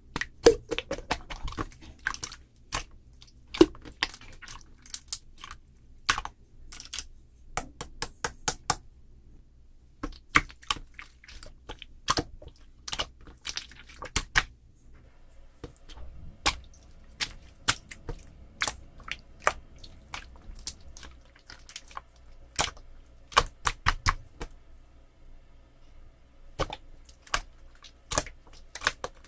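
Marbled slime being kneaded and pressed by hand, making irregular crisp clicks and pops, with a short pause about nine seconds in.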